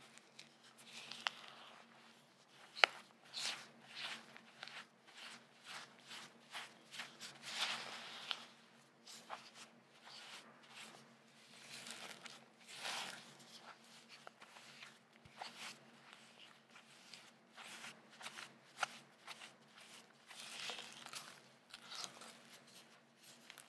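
Silicone spatula mixing powdered sugar into butter and cream cheese in a glass bowl: irregular soft scrapes and squishes of the thick mixture against the glass. There is one sharp click about three seconds in.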